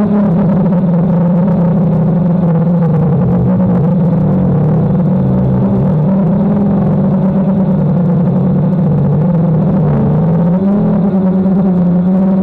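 DJI Phantom quadcopter's motors and propellers whirring in a steady, loud hum whose pitch dips and rises as the throttle changes, most clearly in the middle and again about ten seconds in.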